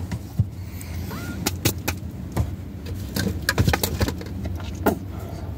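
Close handling of a can of moist snuff while a pinch is taken and packed into the front lip: scattered small clicks, ticks and rustles, thickest in the middle, over a steady low hum.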